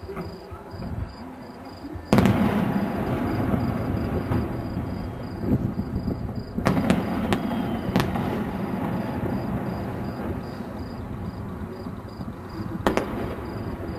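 Aerial fireworks shells bursting: a sharp bang about two seconds in sets off a continuous rumble of booms and crackle, with more sharp bangs around the middle and near the end.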